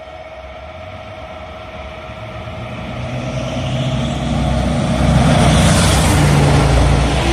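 A train approaching at speed, its running noise building steadily from a distant rumble to a loud rush in the last couple of seconds.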